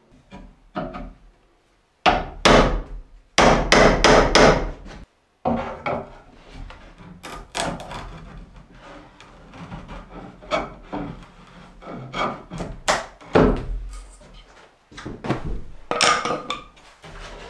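Wooden knocks and clatter from kitchen cabinet carcasses being worked on and handled, with a run of loud knocks about two to five seconds in and lighter irregular knocks after.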